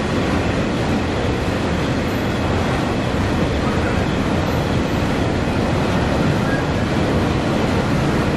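Freight train of container flatcars and open-top wagons rolling past, a steady, loud noise of wheels on the rails.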